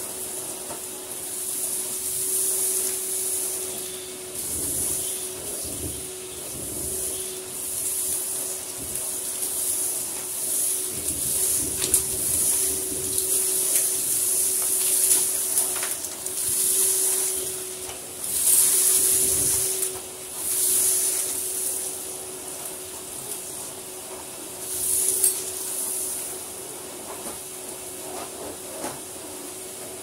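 Numatic Henry canister vacuum cleaner running steadily with a constant motor hum, its floor tool sucking up a pile of sand and dirt from carpet. The suction hiss swells and fades with each push and pull of the tool, with occasional sharp ticks.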